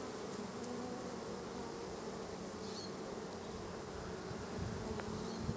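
Honey bee colony buzzing in a steady, continuous hum from an opened, crowded hive during an inspection.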